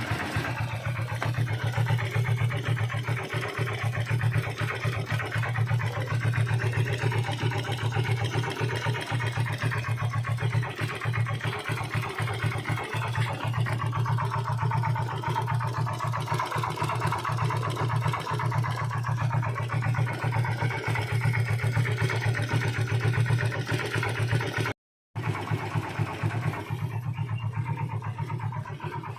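Yamaha LC135 motorcycle's single-cylinder four-stroke engine running steadily at idle with a rapid, even knocking from inside the engine, a knock that means a costly internal repair. The sound drops out briefly near the end and comes back a little quieter.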